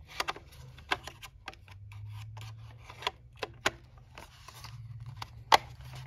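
Short plastic-and-metal clicks and knocks from a Dell docking station's Thunderbolt module being handled and fitted onto the dock body. A sharper click comes about five and a half seconds in. A faint low hum runs underneath.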